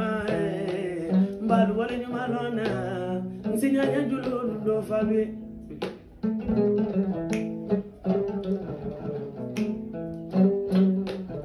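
Khassonké song: a woman's singing voice over a plucked-string accompaniment. The singing stops about three to four seconds in, and the plucked strings carry on alone.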